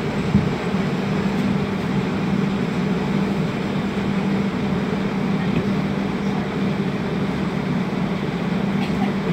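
Steady hum and rumble inside a Toronto streetcar's cabin, with a single knock about half a second in.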